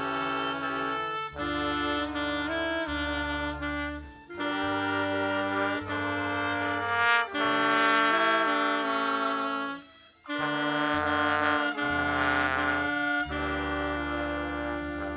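A student orchestra playing held chords, with wind instruments standing out. The music comes in phrases, with short breaks about four and ten seconds in.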